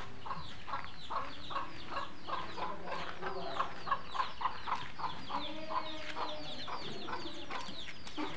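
Rapid, evenly repeated bird calls, about three or four a second, loudest about halfway through and thinning out near the end.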